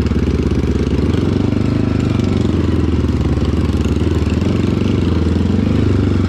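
Motorcycle engine running steadily close to the microphone, holding an even speed without revving up.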